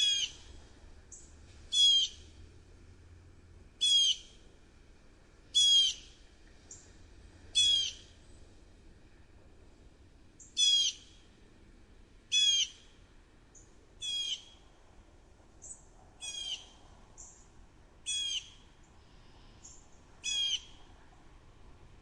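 Blue jay calling a short call over and over, eleven times, about every two seconds, with a few faint, high short notes between the calls.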